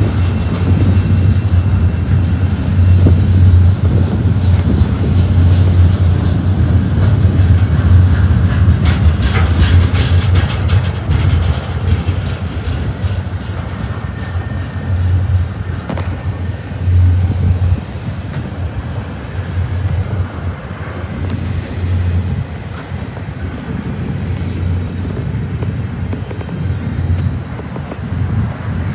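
A BNSF double-stack container train's cars rolling past close by, with a steady low rumble of steel wheels on rail. A run of clicking and clanking comes around ten seconds in, and the rumble eases a little in the second half.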